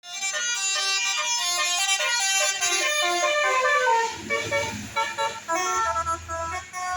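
Tourist bus's telolet horn: multi-tone air horns playing a quick melody of bright stepping notes. A low rumble joins under the horn about four seconds in.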